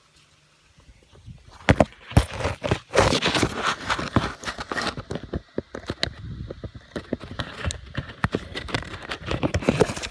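Irregular clicks, knocks and rustling of mower parts being handled, with no steady motor sound.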